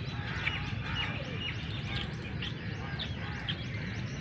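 Many birds chirping, a steady stream of short, quick high notes, over a steady low outdoor rumble.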